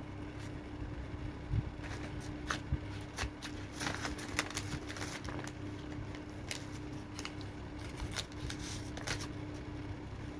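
Loose papers and envelopes rustling and crinkling in short crackles as a cat paws and noses through the pile, busiest through the middle, over a steady low hum.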